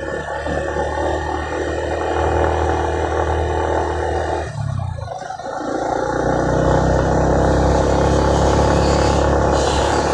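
Motorcycle engine running steadily while riding along a road, with a brief dip in the engine sound about halfway through before it picks up again.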